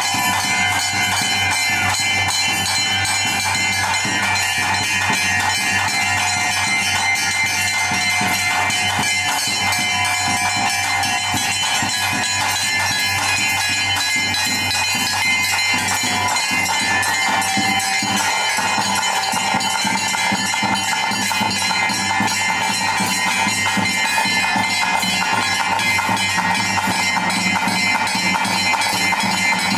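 Bhuta kola ritual music: bells and metal percussion ringing in a fast, unbroken rhythm, with sustained tones over it.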